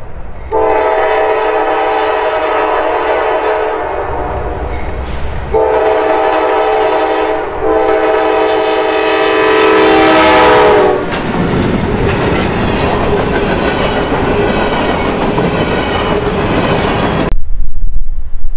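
GE C40-9W diesel locomotive sounding its multi-note air horn in long blasts as it approaches, then passing close by with the loud rush and clatter of the locomotive and its freight cars on the rails. Near the end the sound cuts abruptly to wind buffeting the microphone.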